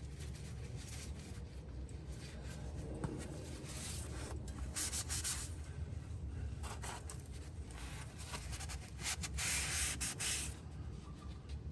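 Irregular rubbing and scuffing noises in bursts, loudest about five seconds in and again near the end, over a low steady hum.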